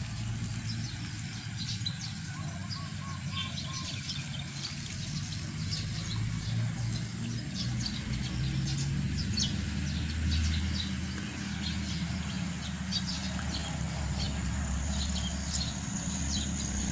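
Small birds chirping repeatedly, short high calls scattered throughout, over a steady low rumble.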